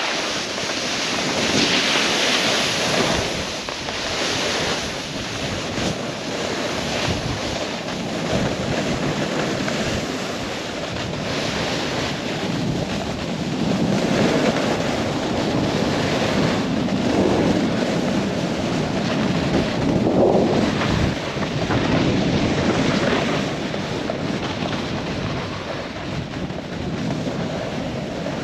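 Wind rushing over the microphone, with the hiss and scrape of snowboards carving through snow, swelling and easing with the turns.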